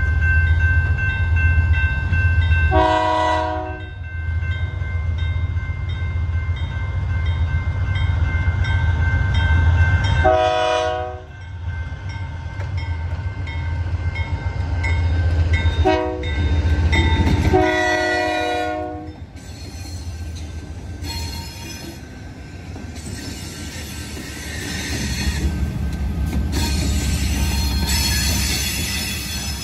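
Diesel locomotives of the Arizona Eastern Railway approaching a grade crossing, sounding the horn in the crossing pattern: long, long, short, long, over a steady low engine rumble and the crossing bell dinging. In the last seconds the locomotives roll across the crossing with rising wheel-on-rail noise.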